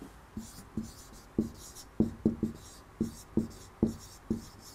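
Marker writing on a whiteboard: a string of short taps and squeaks as the pen tip strokes out letters.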